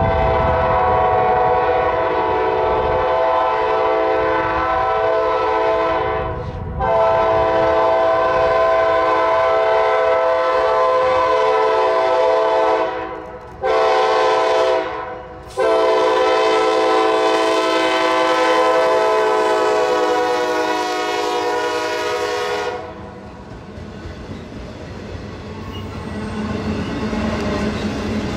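A Norfolk Southern diesel freight locomotive's multi-note air horn blows the grade-crossing signal: two long blasts, a short one and a final long one. After the horn stops, near the end, the train's autorack cars rumble past.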